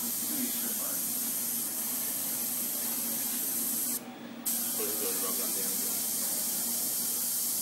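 Airbrush spraying: a steady hiss of air and paint that cuts out for about half a second just past the middle, then starts again.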